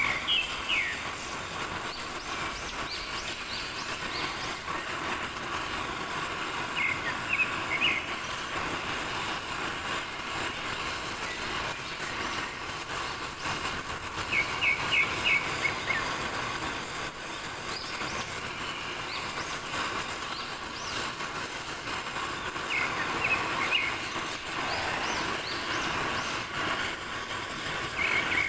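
Gas cutting torch flame hissing steadily as it heats a steel pipe for bending. A short cluster of high chirps recurs about every seven seconds.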